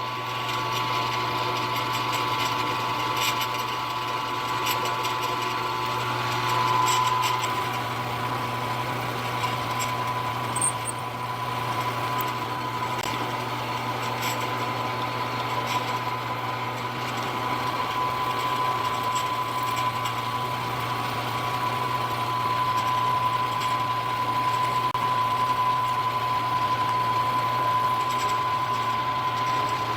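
Milling machine spindle motor running steadily while a long drill bit drills into a steel stop collar: a continuous machine whine with a high tone over a low hum, and faint scattered ticks.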